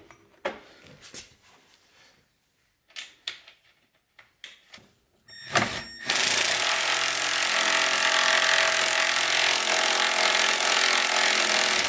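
A few light knocks of parts being handled, then about six seconds in a cordless impact driver starts and runs steadily for about six seconds, spinning a nut down to fasten a carbide runner to a snowmobile ski, and stops.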